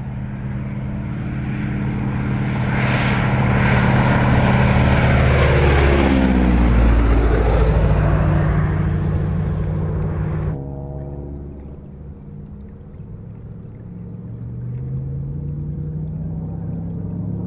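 Boeing Stearman PT-17 biplane's radial engine and propeller flying low past, the engine note sliding down in pitch as it goes by at its loudest. About ten seconds in it cuts suddenly to the engine heard from on board the aircraft, running steadily and then rising in pitch as the engine speeds up.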